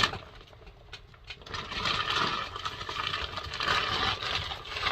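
Plastic wrapping crinkling and rustling as layers of packaging are handled and pulled apart, starting about a second and a half in and going on as a dense, crackly rustle.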